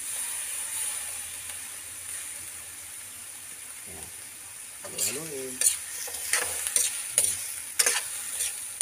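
Balut eggs, green chilies and onion sizzling steadily in oil and liquid seasoning in a metal wok. From about five seconds in, a metal spatula scrapes and clanks against the wok again and again as the mix is stirred.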